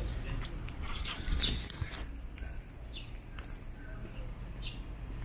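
Insects keep up a steady high-pitched trill while a bird gives a few short, falling chirps about a second and a half apart.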